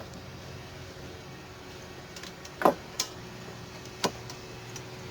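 Thin steel wire stakes from a cut-up sign stand clinking against a steel camp grill as they are slid through its holes: three sharp metallic clicks, the loudest about two and a half seconds in with a brief ring, over a steady low hum.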